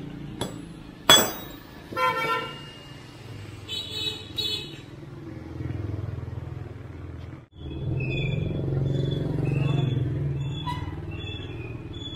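A hand hammer striking a steel part on a steel block, several ringing metal-on-metal blows over the first few seconds, the loudest about a second in. After a cut, steady street traffic hum with short vehicle horn toots.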